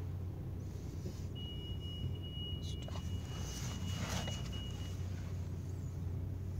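Low steady machine hum heard from inside a car's cabin in an automatic car wash, with a thin, steady high beep-like tone that starts about a second and a half in and stops about three and a half seconds later.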